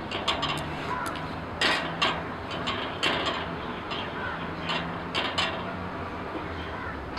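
Cauliflower slices being pressed and moved by hand in a hot, oiled steel frying pan on a charcoal grill: a hiss of sizzling oil, broken by about ten sharp clicks and knocks of the florets and pan, the loudest a second and a half to two seconds in.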